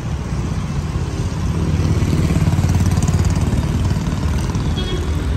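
A motor vehicle's engine running close by, a low pulsing rumble that grows louder over the first two seconds and then holds steady.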